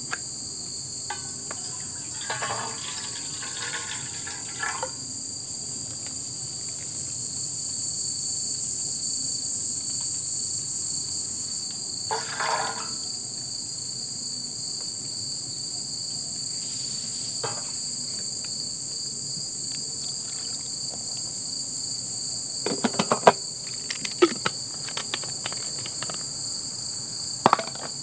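A steady, high-pitched chorus of crickets and other insects chirring without a break. Short rustling scrapes come twice in the first half, and a cluster of sharp clicks and knocks comes near the end.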